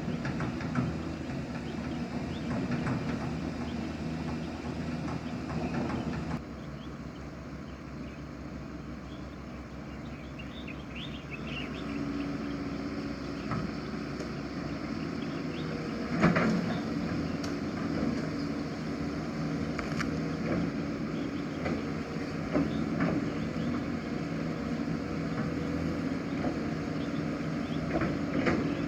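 Excavator's diesel engine running steadily under work, with occasional sharp metal clanks. The sound changes abruptly about six seconds in.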